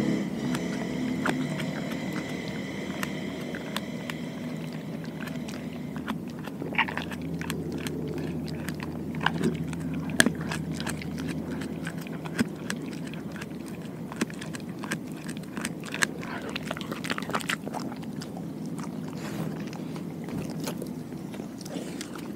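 A dog chewing and crunching raw food close to the microphone, with sharp wet clicks and crunches that come thickest from about six to eighteen seconds in.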